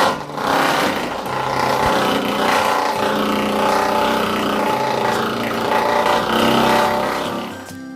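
Central heating system being flushed: a steady machine running noise with a rushing hiss that starts and stops abruptly.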